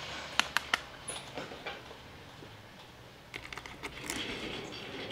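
Small metal clicks of a wristwatch and its loose bracelet links being handled and set down on a counter: three sharp clicks within the first second, a few lighter ones, then a quick run of clicks about three and a half seconds in.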